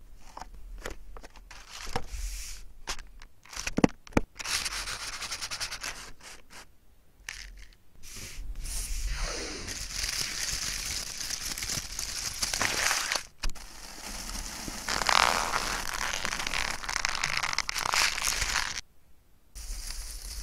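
Paper crackling and rubbing: a run of sharp crackles and clicks, then long stretches of rough, scraping friction that cut off briefly near the end.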